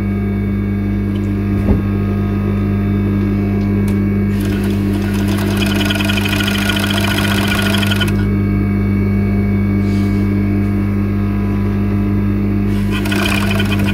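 Industrial sewing machine running: its motor hums steadily, and it stitches in two runs, one from about four to eight seconds in and another starting near the end, as ribbed knit fabric is fed under the presser foot.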